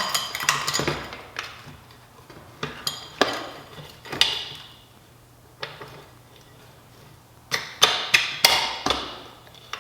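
Metallic clinks and clanks of a motorcycle roller chain being handled and fitted onto the rear sprocket, some ringing briefly, with a quicker run of several clinks near the end.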